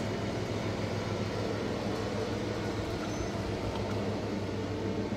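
A steady low mechanical hum, like a motor or engine running, unchanging throughout.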